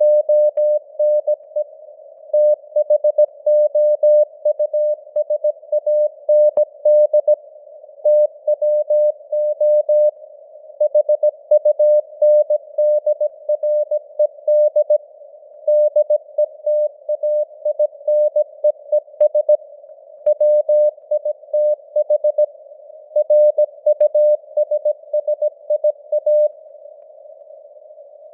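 Morse code (CW) news text sent at 17 words per minute: a single mid-pitched tone keyed on and off in dots and dashes, with short pauses between words. A faint hiss of simulated radio noise fills the gaps, and the signal strength rises and falls as simulated fading (QSB).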